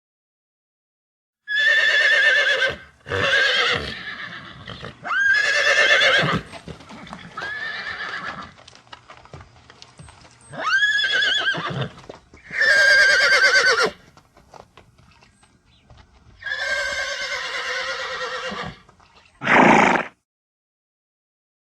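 Horses neighing: a string of about eight whinnies, each a second or two long with a quavering pitch, with short pauses between them.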